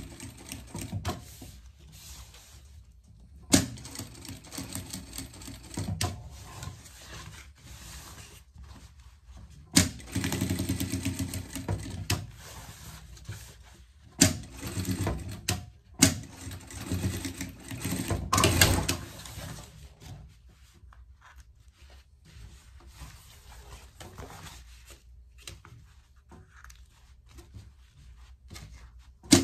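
Sewing machine stitching through raincoat fabric in several short runs that stop and start, each beginning with a sharp click, over the first two-thirds; then quieter rustling of the fabric being handled, and a sharp click near the end.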